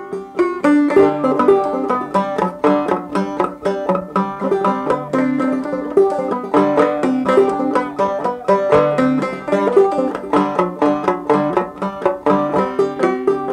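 A banjo picking a tune: a quick, even stream of plucked notes.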